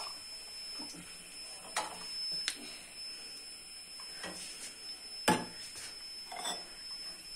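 Steel ladle and steel cup clinking against an aluminium saucepan as tea is ladled out: a few separate clinks, the loudest about five seconds in.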